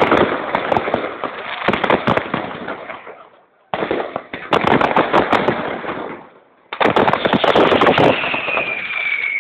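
Aerial fireworks display: dense, rapid runs of cracks and bangs from exploding shells and crackling stars, dropping away briefly twice and starting again abruptly. A high whistle, falling slightly in pitch, sounds near the end.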